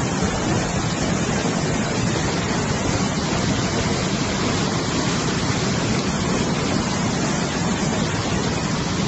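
Muddy floodwater rushing down in a fast, churning torrent over rocks: a steady, unbroken rush of water.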